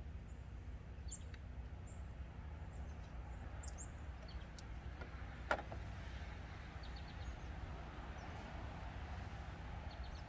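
Steady low background hum with faint, scattered bird chirps, and one sharp click about halfway through.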